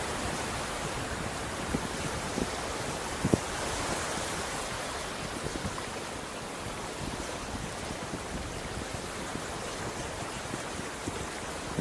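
Ocean waves washing onto the beach: a steady wash of surf, with a few short low thumps, the strongest about three seconds in.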